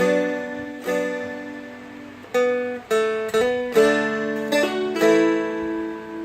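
Seagull Merlin M4, a four-string fretted dulcimer-type instrument, picking a slow melody riff, about eight notes over lower strings left ringing.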